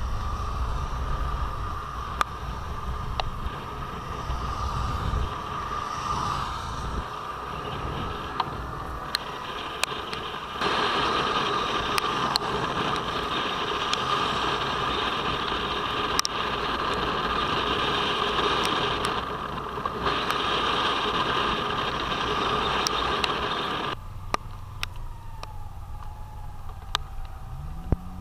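Motorcycle ridden on a wet road in the rain, heard from an onboard camera: a steady rush of wind and road noise with scattered sharp ticks. It grows louder about ten seconds in and falls back near the end.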